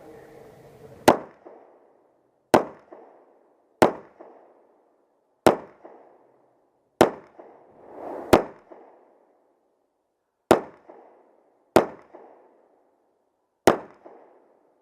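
Sig Sauer P226 pistol in .40 S&W firing nine single shots at an unhurried, uneven pace, about one every 1.3 to 2 seconds, each shot cracking sharply and dying away in a short echo.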